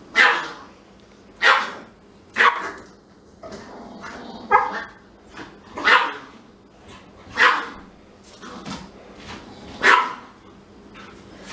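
Pomeranian barking in short, sharp yaps, about seven of them spaced a second or two apart.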